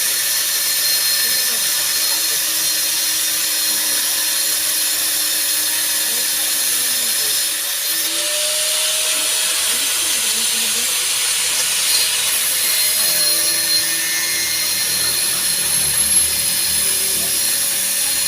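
A power tool running steadily, giving a loud, even high-pitched hiss without a break, with faint wavering tones underneath.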